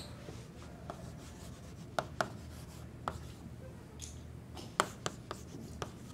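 Chalk writing on a blackboard: faint scratching strokes with sharp taps as the chalk strikes the board, the loudest taps about two seconds in and near five seconds, over a low steady hum.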